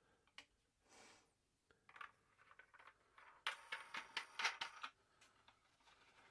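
Hand tools and plastic plumbing fittings being handled: a few scattered clicks, then a burst of rattling clatter about three and a half seconds in.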